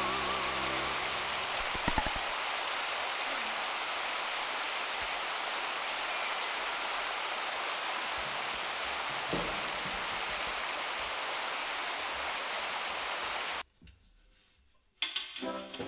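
Steady rushing of running water, like a stream, which cuts off abruptly near the end. A moment later, accordion music starts.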